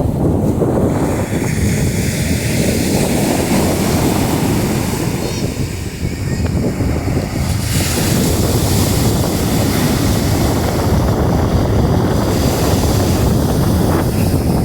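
Sea surf washing on the shore, with strong wind rumbling on the microphone. The hiss of the surf swells about eight seconds in.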